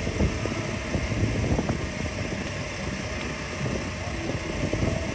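Wind buffeting the microphone outdoors: an uneven low rumble that keeps gusting up and down.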